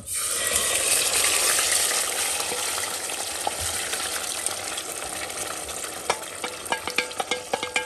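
Cherry tomatoes and their juice poured into hot oil where garlic is frying, setting off a loud sizzle that starts suddenly and slowly dies down. Toward the end, a wooden spoon scraping the tomatoes out knocks and clicks against the metal bowl and pot.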